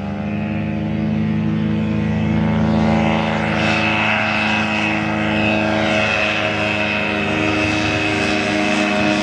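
Ultralight aircraft's engine and propeller running at high power on takeoff and climb-out: a loud, steady drone with many overtones and a thin high whine over it, the pitch settling right after a rise in throttle.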